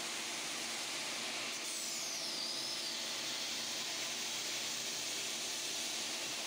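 Stone polishing machine running, its motor and spinning abrasive pad on a stone slab making a steady whirring hiss. A faint high whistle slides down in pitch about two seconds in.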